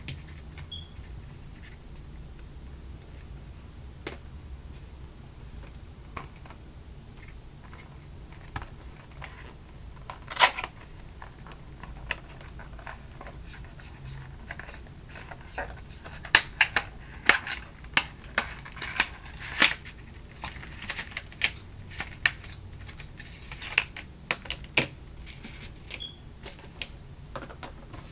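Cardboard and plastic packaging handled and opened by hand: scattered light taps, a sharp snap about ten seconds in, then a quick irregular run of clicks, taps and crinkles from about the middle to near the end as a phone case's box is opened.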